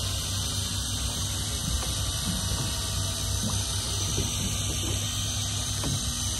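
Hand-cranked deep-sea fishing reel winding line in, its gears clicking faintly and unevenly over a steady low hum and hiss.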